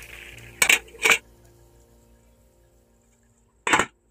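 Metal spatula knocking against the side of a metal cooking pot while the rice is mixed: two sharp clanks about half a second apart, then one more near the end.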